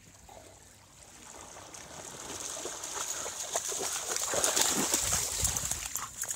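Dog splashing through shallow lake water as it wades ashore with a stick. The splashing builds from about two seconds in and is loudest a little past the middle.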